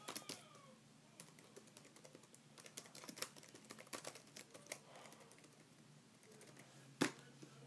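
Faint, irregular key clicks of typing on a keyboard, with one louder click about seven seconds in, over a faint steady low hum.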